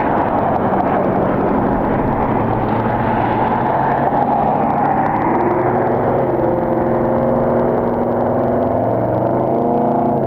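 Jet airliner's engines running loud and close: a heavy rushing noise, with a steady stack of engine tones coming up about halfway through as the aircraft passes.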